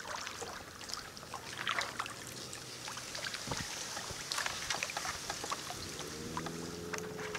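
Kayak paddle strokes: irregular splashes and water dripping from the blade as the kayak noses into shallow marsh grass. A steady low hum comes in about six seconds in.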